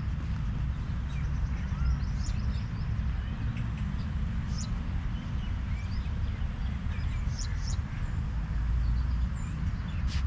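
Birds chirping: short, scattered calls over a steady low rumble.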